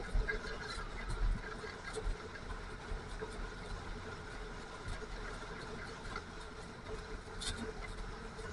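Snowmobile engine running at a steady pitch during a trail ride, with an uneven low rumble underneath.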